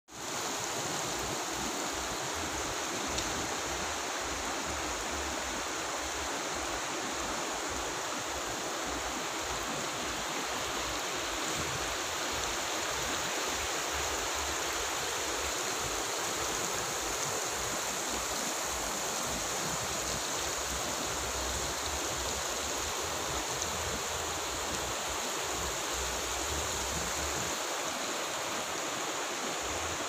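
A shallow, fast mountain stream rushing over a wide gravel and cobble bed: a steady, even rush of water.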